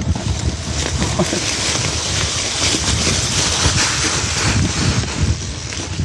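Hardtail mountain bike descending a rough, leaf-covered trail: wind rushing over the microphone, with dry leaves crunching under the tyres and the bike rattling and jolting over bumps without rear suspension.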